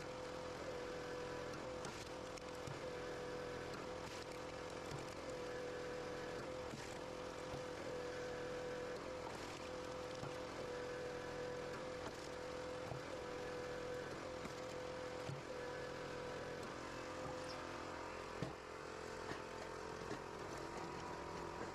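Firewood processing machine running with a steady mechanical hum, broken by occasional short knocks.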